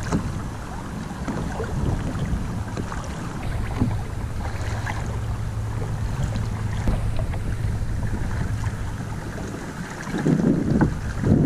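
Water washing along the hull of a pedal-driven fishing kayak under way, with scattered light ticks. A steady low rumble of wind on the microphone runs underneath and gusts louder near the end.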